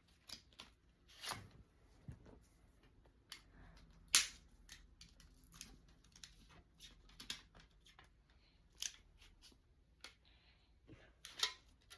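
Plastic wrapper crinkling and crackling in a string of short crackles as it is pulled and twisted by hand in an attempt to tear it open; the loudest crackle comes about four seconds in.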